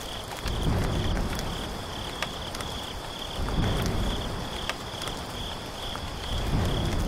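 Crickets chirping in a steady, pulsing high trill over a low rumble that swells about every three seconds, with occasional sharp ticks.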